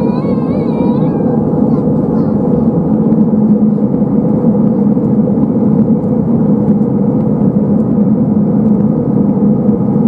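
Steady cabin noise of an Airbus A320 in descent, engine and airflow rushing, heard from a window seat over the wing. A low hum strengthens a couple of seconds in, as the speedbrake spoilers rise on the wing. A brief wavering voice is heard at the very start.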